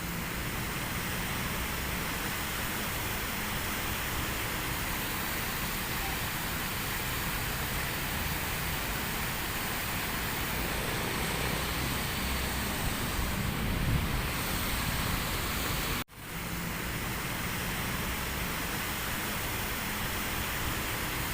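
Steady, even outdoor hiss with no clear single source, with a brief low rumble about two-thirds through. About three-quarters through it cuts out suddenly and fades back in.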